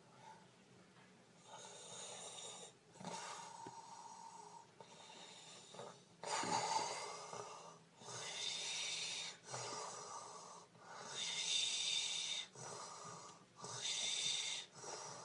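A person snoring: about ten drawn-out, noisy breaths in and out, each lasting a second or so, with short pauses between them.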